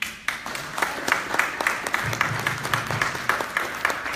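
A small audience applauding: a dense run of separate hand claps.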